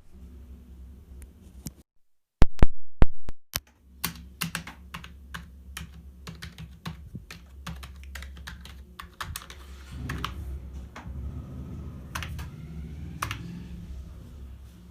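Keys of a Cosmic Byte CB-GK02 gaming keyboard being typed on, irregular clicking keystrokes over a low hum, with a few much louder sharp clicks about two and a half seconds in.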